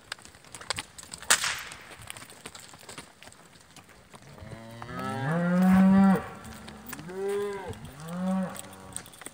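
Cattle mooing: one long moo about halfway through, then two shorter moos close together. A single sharp crack comes about a second in.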